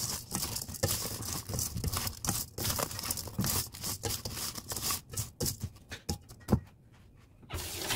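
A hand tossing and squeezing wet sliced old-cucumber (nogak) half-moons in a stainless steel bowl, with quick rustling, squishing and clicking as the slices knock against the bowl and each other. This is mixing them with salt to lightly pickle them. The sound thins out after about six seconds, and there is a brief rush of noise near the end.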